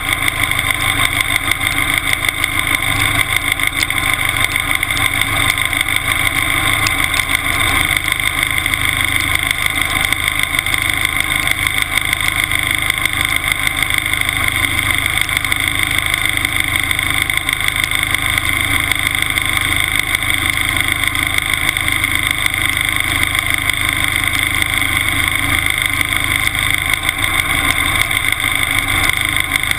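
Timberjack 201 skidder's engine idling steadily, heard close up from a camera mounted on the machine.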